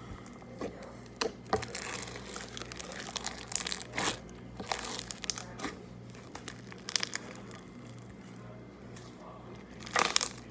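Hands squishing and stretching slime, giving irregular sticky pops and crackles.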